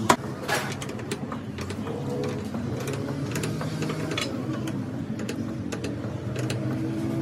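Irregular sharp metal clicks and clinks of a steel spanner working nuts and bolts on the tractor's dashboard fittings.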